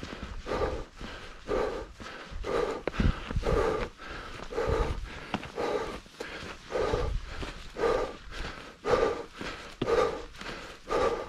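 A hiker breathing hard and rhythmically, about one breath a second, from the exertion of climbing uphill, with footsteps thudding on the dirt trail underneath.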